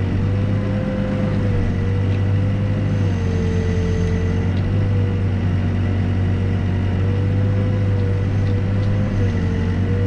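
Backhoe's diesel engine running at a steady speed, with a whine above it that wavers slightly up and down in pitch as the machine works.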